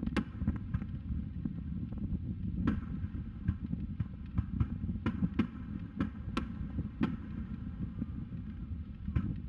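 Distant aerial firework shells bursting: a string of sharp cracks and pops at uneven intervals, the loudest about three seconds in and again about six seconds in, over a steady low rumble.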